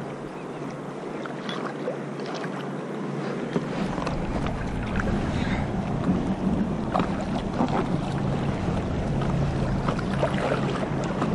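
Choppy river water rushing and splashing against an inflatable stand-up paddleboard as it is paddled through rapids, with scattered paddle-stroke splashes. Wind rumble on the microphone comes in about three and a half seconds in.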